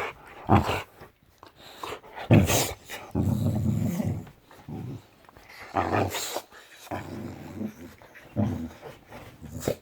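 Boxer dog growling in long low grumbles, broken by a few short sharp sounds.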